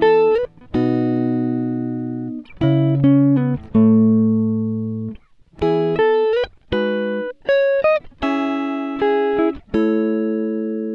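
Background music: plucked guitar playing a slow melody of single notes and chords, each ringing and fading.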